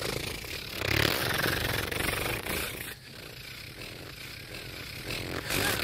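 A rough, steady buzzing noise, louder for the first three seconds and then quieter, like a dragonfly's whirring wings.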